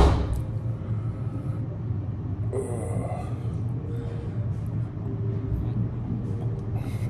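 Steady low hum of room machinery. A glass knocks down on a table right at the start, and a short vocal sound comes about three seconds in.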